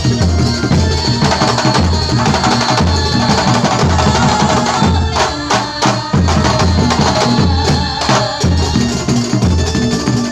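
Live Banyuwangi kuntulan music on terbang frame drums and other percussion, over a steady deep beat. About halfway through there is a flurry of quick, sharp strikes.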